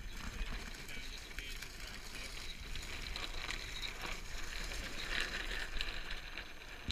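A Dart 18 catamaran's launching trolley rolling over gravel as it is pushed, a steady crunching with scattered small crackles, over a low rumble of wind on the microphone.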